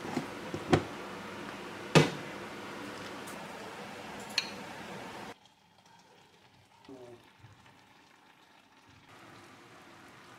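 Cabbage and tofu stew bubbling in a pan while a metal ladle clinks sharply against the serving bowl three times, loudest about two seconds in. About five seconds in, the sound drops abruptly to near quiet, with faint scraping as steamed rice is scooped into a bowl.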